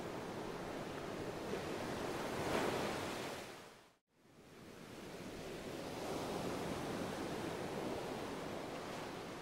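Steady rushing noise, like background hiss, that swells slightly, fades out to silence about four seconds in, then fades back in.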